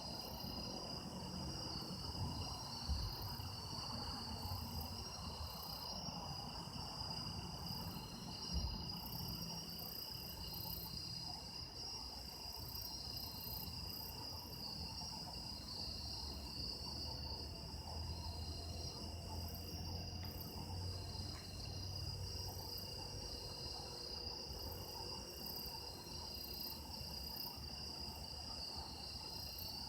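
Autumn insects chirping in several overlapping voices: one continuous high trill with others pulsing in short repeated bursts above and below it. A low thump sounds about three seconds in and again about nine seconds in.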